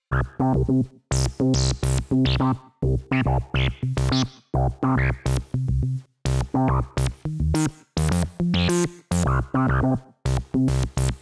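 Background electronic music: a synthesizer track with short, evenly chopped notes repeating about twice a second and high sweeping synth sounds over a steady beat.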